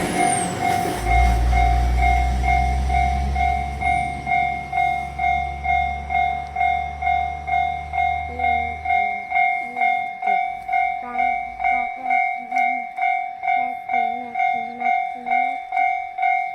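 Japanese level-crossing warning alarm sounding its electronic single-note ding, repeating evenly about twice a second. A passing train's low rumble underlies it and dies away about nine seconds in.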